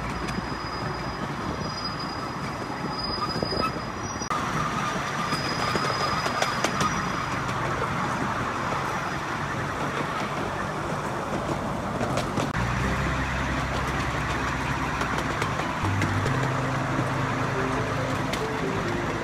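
Ride-on miniature railway train running along the track: a steady rumble and clatter of the carriage wheels on the rails, with a thin high squeal coming and going in the first few seconds.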